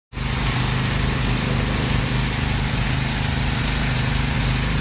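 Small engine running steadily, powering a homemade bore-well drilling machine.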